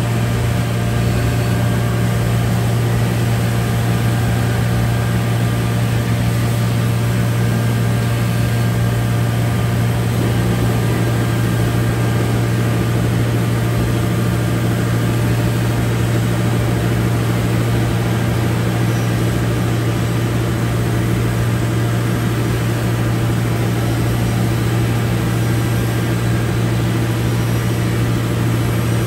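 Steady electric machinery hum from a Biesse CNC router's panel loading station: a loud low drone with fainter steady tones above it and no change in pitch or level.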